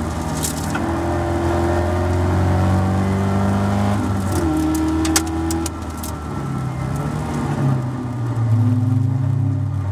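Caterham Seven race car's four-cylinder engine heard from the cockpit at high revs, then easing off about halfway through as the car slows for a corner, and rising in pitch again near the end as it pulls out of the corner.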